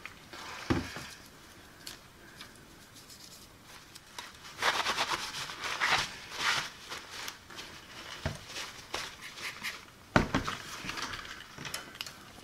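Rubbing and scrubbing on a small plastic battery cover as its corroded contacts are cleaned, with a few light knocks as the plastic parts are handled and set down on the bench.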